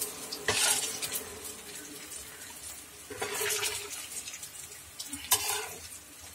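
Brinjal slices crackling in hot sunflower oil as they are scooped out of the frying pan. Louder scraping bursts come about half a second, three seconds and five seconds in, and a sharp tap of the utensil comes just after five seconds.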